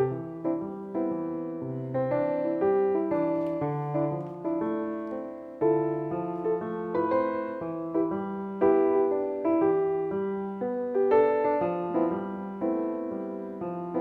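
Background piano music, a gentle melody of struck notes that ring and fade.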